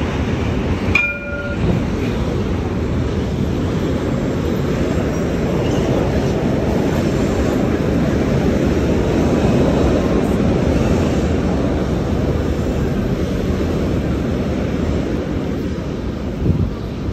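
Electric tram running alongside the platform: a steady, heavy rumble. A short chiming tone sounds about a second in.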